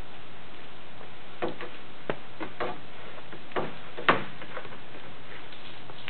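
Irregular light clicks and knocks from insulated copper cable being handled and bent by hand, over a steady hiss. A sharper knock comes about four seconds in.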